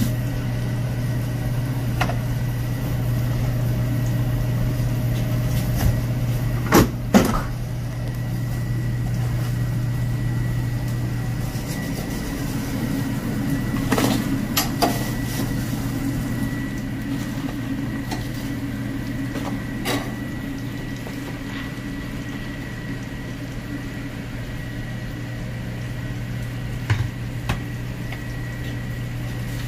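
A steady low machine hum with a faint, thin high whine over it, broken by a few short knocks and clicks, in pairs about 7, 14 and 27 seconds in and singly about 20 seconds in.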